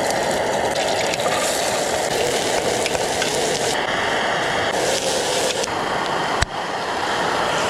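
Cooking on a camp stove: a steady hissing sizzle of a meal heating in the pot. There is a single sharp click a little past six seconds in.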